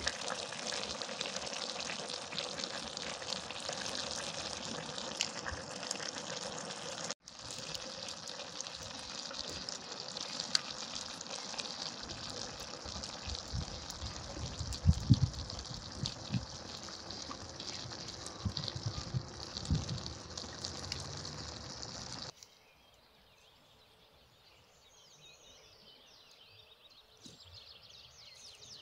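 A pot of stuffed vine leaves boiling hard over an open wood fire: a steady bubbling hiss, with pops and crackles from the burning logs. About 22 seconds in it gives way to a quiet garden with faint bird chirps.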